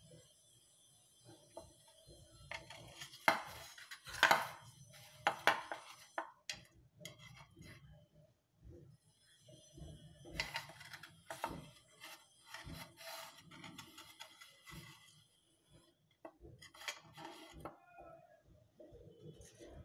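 A knife scraping and tapping against a metal idli plate, with repeated short scrapes and clicks as steamed idlis are loosened from the mould cups and lifted out.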